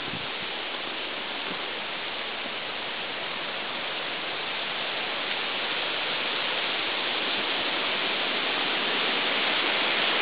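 Steady rushing hiss with no distinct events, slowly growing louder.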